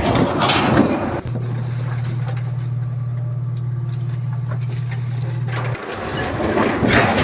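A machine engine running with a steady low drone that lasts about four and a half seconds and then cuts off abruptly. Noisier mechanical clatter comes before and after it.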